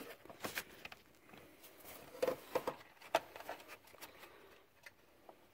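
Faint scattered clicks and light metallic ticks of a headlight bulb's wire retaining clip being worked back into place on the back of the headlight housing, a few sharper clicks a little past two and three seconds in.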